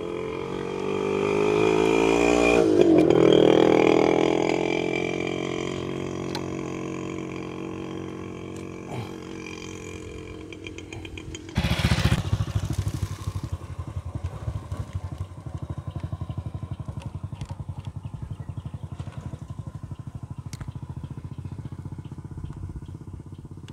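A motorcycle engine passes by, loudest a few seconds in and then dropping in pitch as it moves away. About halfway through the sound changes suddenly to a small engine putting steadily with a rapid low pulse.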